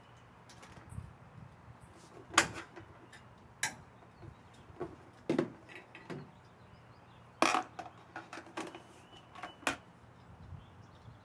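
Scattered clinks and knocks of elliptical trainer parts and hardware being handled and fitted, a few seconds apart; the sharpest comes about two and a half seconds in and a heavier one about seven and a half seconds in.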